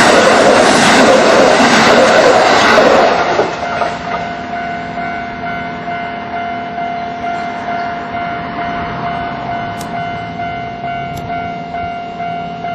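A Kintetsu electric train passing close over the level crossing, its rumble ending about three seconds in. After that the crossing's electronic warning bell keeps ringing at about two strikes a second, at full volume while the barriers are down.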